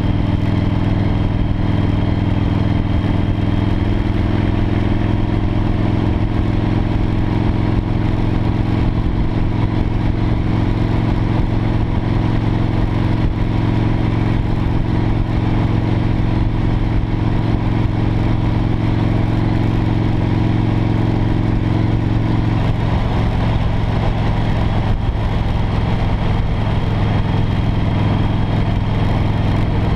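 V-twin cruiser motorcycle running steadily at highway speed, a constant low engine drone mixed with wind rush. The engine note changes slightly about 22 seconds in.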